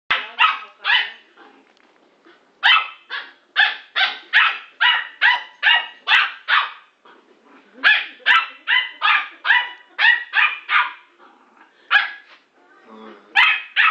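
A small dog barking in quick runs of high-pitched barks, about two to three a second, with short pauses between the runs.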